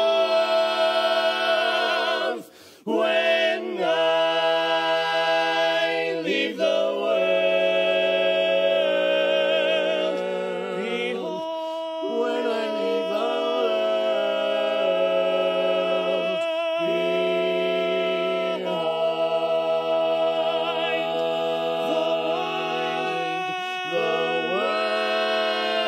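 Barbershop quartet of four men singing a cappella, holding long chords with vibrato and shifting between them, with a brief breath break about three seconds in.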